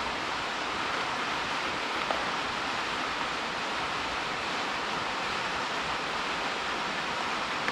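A steady rushing hiss, like air blowing, with one faint click about two seconds in.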